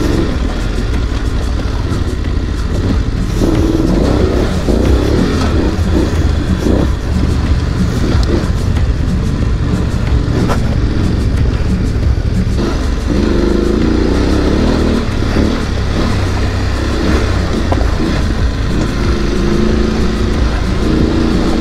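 Adventure motorcycle engines running along a gravel track, rising and falling as the bikes ride, with background music mixed in.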